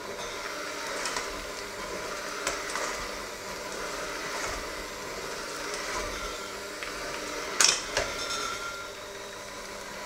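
Electric hand mixer running steadily, its beaters working a thick mixture in a stainless steel bowl. The beaters knock against the bowl now and then, with one sharp clank about three-quarters of the way through.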